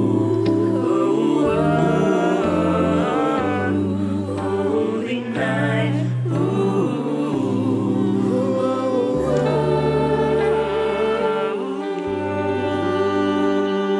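A four-voice vocal ensemble of soprano, alto, tenor and bass singing a Christmas song in close harmony, a cappella, with long held chords over a deep sustained bass line.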